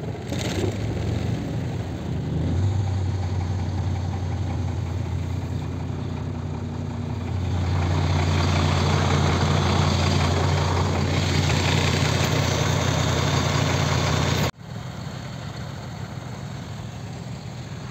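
MAN truck's diesel engine idling steadily, growing louder about halfway through. Near the end the sound cuts off sharply and comes back quieter.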